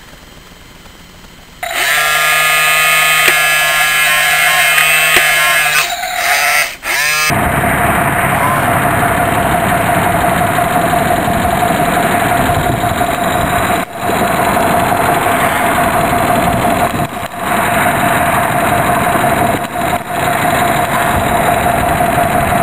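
RC model boat's motor running with a steady whine over a constant wash of noise, dipping briefly a few times. Before that, about a second and a half in, a loud steady whine of several tones starts, shifts in pitch and slides down.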